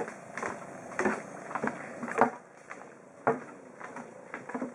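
Footsteps on a wooden plank boardwalk, sharp wooden knocks about once a second.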